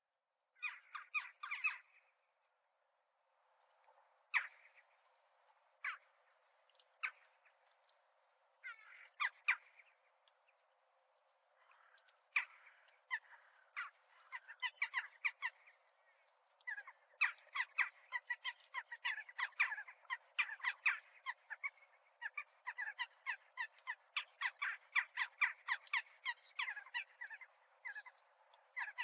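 Crows chattering in quick, short calls. They come in scattered clusters at first, then almost continuously from a little past halfway.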